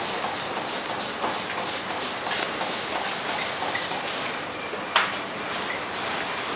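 Crackling and small ticks of an old glued neoprene drysuit neck seal being peeled away from the suit fabric by hand, with a sharper click about five seconds in, over a steady hiss.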